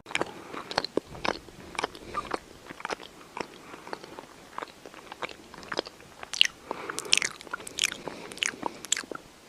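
Crunchy chewing: something crisp being bitten and chewed, with a quick irregular run of sharp crunches.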